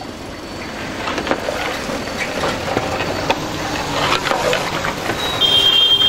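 A long metal ladle stirring chicken gravy in a large aluminium pot, knocking and scraping against the metal, over street traffic noise. A vehicle horn sounds briefly near the end.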